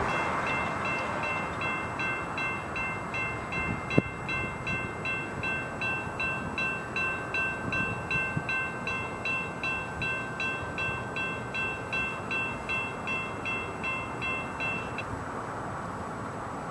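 Electronic railroad crossing bell dinging about twice a second. It falls silent about fifteen seconds in, once the crossing gates are down. A single sharp click comes about four seconds in.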